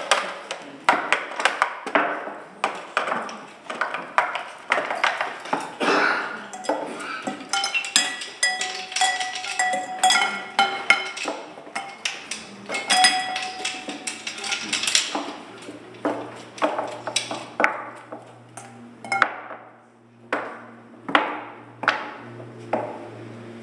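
An irregular series of sharp knocks and clinks on hard objects, about one or two a second. Between about 8 and 15 seconds in, several strikes ring on briefly in clear tones. A low steady hum comes in a little past the middle.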